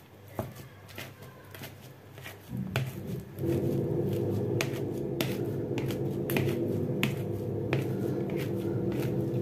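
A metal potato masher clicks and knocks against a plastic bowl in repeated strokes as boiled potatoes are mashed. About three seconds in, a steady low hum starts and runs on under the strokes, louder than the mashing.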